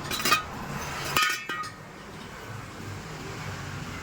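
Metal clinking: a quick cluster of clinks at the start, then a sharper clink about a second in that rings briefly, over a low steady hum.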